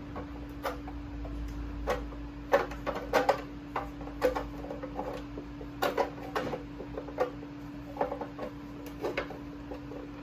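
Broken plastic fridge shelf pieces clicking and knocking as they are handled and pushed together to line up the crack, irregular sharp taps over a steady hum.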